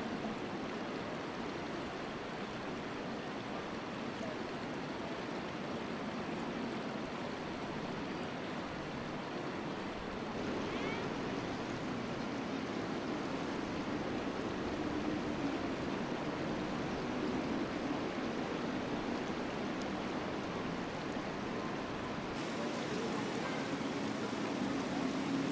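Water of the Cheonggye stream flowing in a steady rush, the tone shifting slightly twice.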